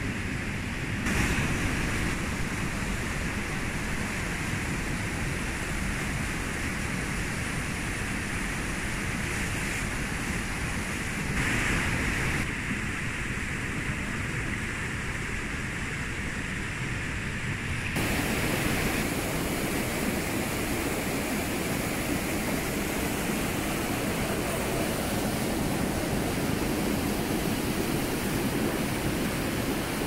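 Waterfall and stream water rushing in a steady noise. Its tone shifts abruptly a few times, most clearly about two-thirds of the way through, where it turns fuller and brighter.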